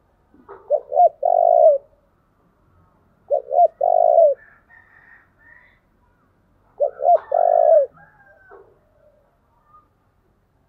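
Spotted dove cooing, three calls a few seconds apart. Each call is two or three short coos followed by a longer coo that drops at its end. Faint higher chirps come between the calls.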